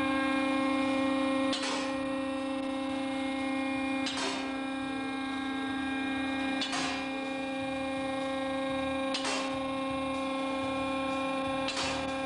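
A steady hum at one unchanging pitch, with a short click about every two and a half seconds.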